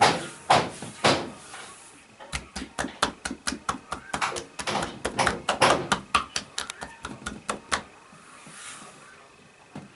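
Hands slapping and patting a person's body in percussive massage. A few strikes come about two a second, then about two seconds in a fast run of about five a second starts and lasts some five seconds before it stops.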